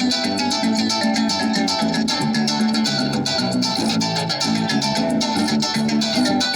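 Harp being played: a fast run of plucked notes over a repeating bass pattern, without a break.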